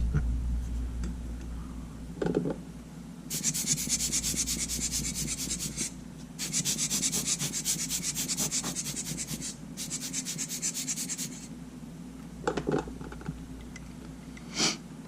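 Fast, rhythmic rubbing strokes by hand on a small camera part, several strokes a second, in three runs of a few seconds with brief pauses between. A few light taps of handling come before and after.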